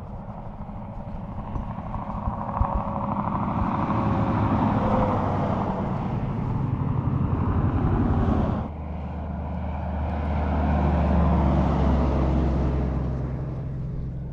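Heavy trucks passing on a highway: engine note and tyre noise build as one approaches and goes by, then about nine seconds in the sound switches abruptly to another truck's deep engine drone, which swells and eases.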